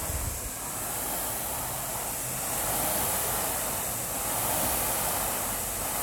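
Air rowing machine's fan flywheel whirring in a steady rush that swells slightly with each pull stroke.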